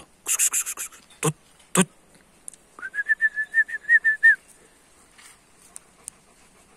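A few short, sharp clicks, then about three seconds in, a high whistled note that flutters at one steady pitch for about a second and a half.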